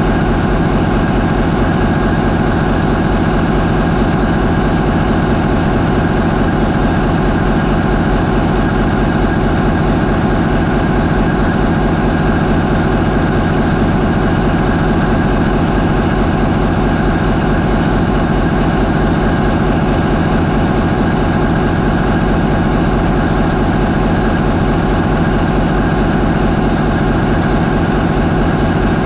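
MAN 20V28/33D STC twenty-cylinder V diesel, a ferry's main propulsion engine, running steadily at 550 RPM. A loud, even drone that holds its speed.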